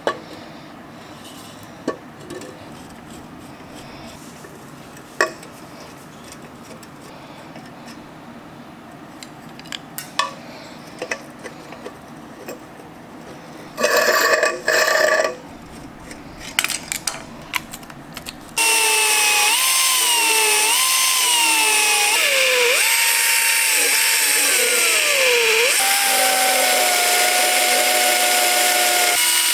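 Rusty metal hibachi parts being handled, with scattered knocks and clanks and a short loud burst about halfway. About two-thirds of the way in, a small air-powered belt sander starts and runs loudly on the rusted hibachi bowl, its whine sliding up and down as it is pressed into the metal, then dropping out briefly near the end.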